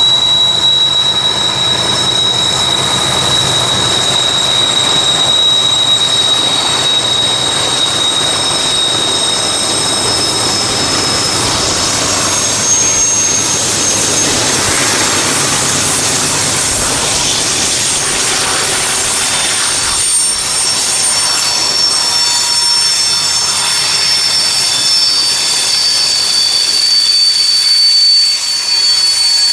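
BNSF freight train passing on a curve: its GE diesel locomotives drone by in the first half, then the trailing boxcars roll past with a steady high-pitched wheel squeal from the flanges in the curve.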